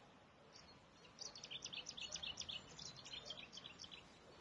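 A songbird singing a quick run of short, high chirps that starts about half a second in and stops near the end, faint over a quiet outdoor background.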